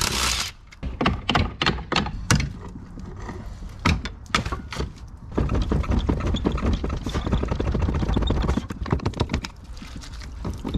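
Metal clicks and knocks of hand tools working on an OMC sterndrive outdrive as it is unbolted and worked loose from the boat, with a denser stretch of rapid rattling and rubbing about halfway through.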